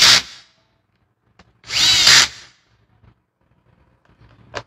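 Power drill-driver running screws into a drill's housing in short bursts: one burst ends just as the sound begins, and another of under a second comes about two seconds in, its motor whine rising and falling in pitch.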